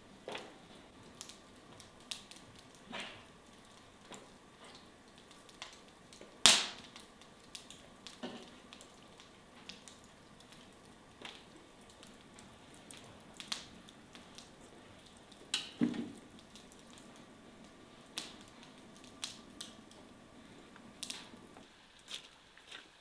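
Wood fire crackling in a fireplace: scattered sharp clicks and pops, one much louder pop about six seconds in, with a few soft knocks as raw chicken legs are set down on a cloth-covered table.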